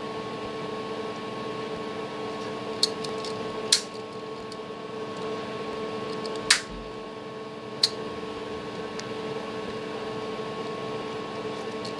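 A handful of short, sharp clicks from the plastic and metal parts of an opened motor circuit breaker's thermal-trip mechanism as it is handled and adjusted, over a steady hum.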